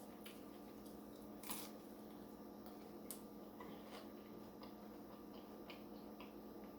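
Near silence: room tone with a faint steady hum and a few soft clicks, the clearest about one and a half and three seconds in.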